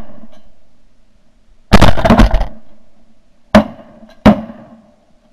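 Shotgun blasts: a quick volley of several shots about two seconds in, then two single shots less than a second apart a little later. The shots are heard from a camera mounted on a gun barrel.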